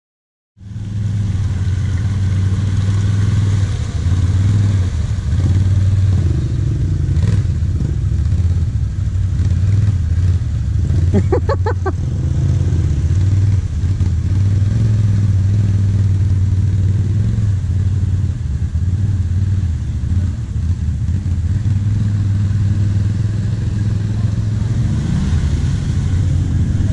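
ATV engines running steadily, a deep even drone from the quad carrying the camera and other quads wading through muddy water. It cuts in suddenly about half a second in.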